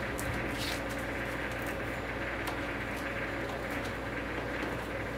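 Light clicks and rustles of plastic DVD cases and wrapping film being handled, over a steady background hum.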